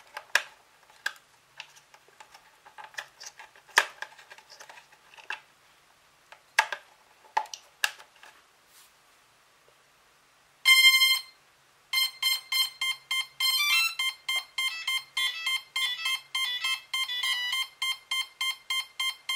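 Clicks of the battery lead being handled and plugged into a Cheerson CX-20 quadcopter. About 11 s in comes one long beep, then the motor speed controllers' stepping startup tones. These give way to a steady train of short beeps, about two or three a second, from the one faulty ESC whose motor will not power up.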